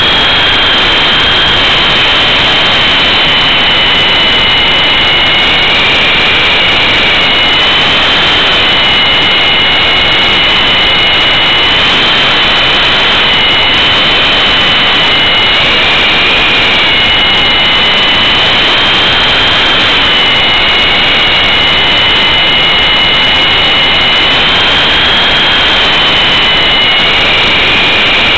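E-sky Big Lama coaxial electric RC helicopter in flight, heard from a camera mounted on board: two high motor whines that drift up and down every few seconds with the throttle, over a loud rushing of rotor wash.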